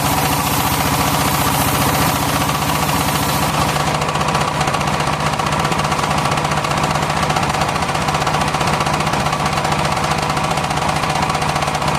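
Engine of a circular-saw sawmill running steadily, with a rapid, even beat and steady tones; the high hiss on top thins out from about four seconds in until near the end.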